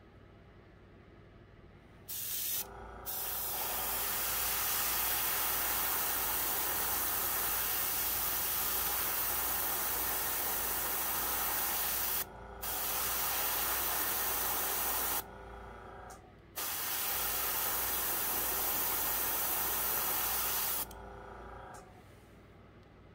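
Gravity-feed airbrush spraying pearl blue paint: a steady hiss in four bursts, a short blast about two seconds in, then a long one of about nine seconds and two shorter ones of three to four seconds with brief pauses between.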